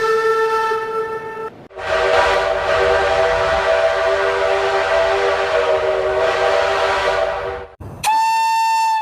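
Steam train whistle sounds. A whistle note ends about a second and a half in. Then comes a long chime whistle sounding several notes together over a steam hiss for about six seconds, and near the end a short, higher single-note whistle that cuts off abruptly.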